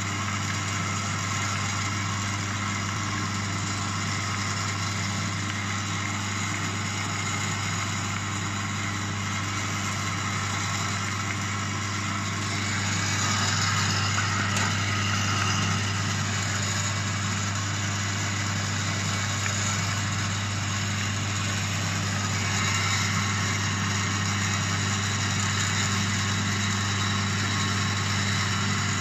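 Traditional Chinese medicine pill making machine running steadily: a constant electric motor hum with a drone of turning rollers and gears, a little louder for stretches from about the middle on.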